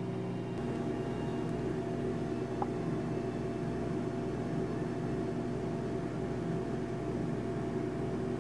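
Low, steady droning hum of a dark horror underscore, thickening a little under a second in.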